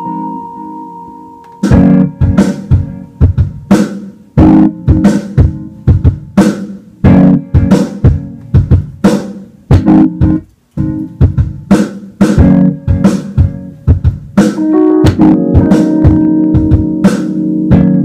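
Jazz played on electronic keyboards over a steady drum beat, held organ-like chords under sharp drum hits about twice a second. The beat comes in about a second and a half in, drops out briefly around the middle, and the chords grow fuller near the end.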